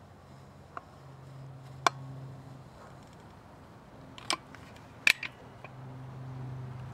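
Caulking gun squeezing out clear silicone caulk: about five sharp clicks from the trigger and plunger, two of them close together about five seconds in. A faint low hum comes and goes behind them.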